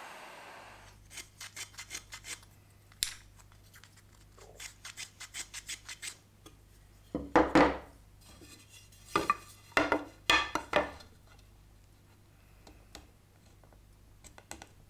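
Wooden strips being handled on a workbench: a run of light clicks and taps, then a few louder wooden knocks and scrapes about halfway through.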